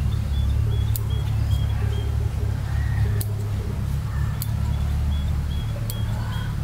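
Bonsai scissors snipping small shoots, about four sharp clicks a second or so apart, over a steady low rumble. Faint high chirps repeat in the background.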